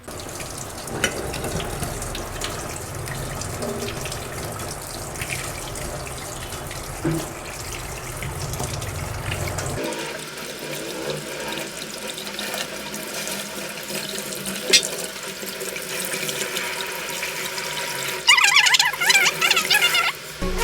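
Tap water running into a kitchen sink as raw crabs are rinsed under it, a steady splashing; about halfway the low rumble of the flow drops away. Near the end a louder pitched warbling sound comes in for about two seconds.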